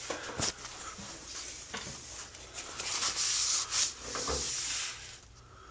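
Rubbing and scuffing noise with a few soft knocks, stopping about five seconds in.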